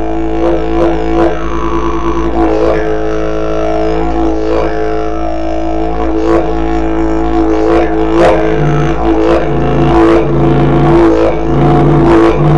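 Didgeridoo music: a continuous droning note with rhythmic, sharply accented overtones and falling sweeps in the upper tones. From about eight and a half seconds in, a lower note pulses on and off, roughly once every 0.8 seconds.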